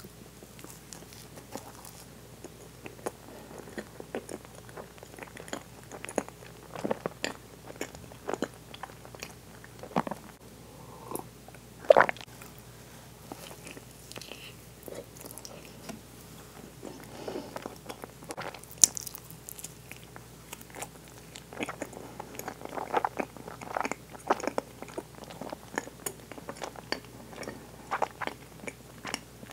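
Close-miked chewing and wet mouth clicks as a woman eats soft sweets: a cream-filled pastry, then bites of a strawberry-and-whipped-cream mochi (yukiichigo daifuku) with very soft mochi. Two sharper clicks stand out, about twelve and nineteen seconds in.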